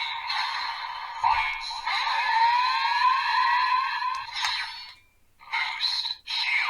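Kamen Rider Geats DX Desire Driver toy belt with the Boost Raise Buckle playing its electronic sound effects, voice and music through its small built-in speaker, with a run of rising pitch glides in the middle. The sound drops out briefly about five seconds in, then starts again.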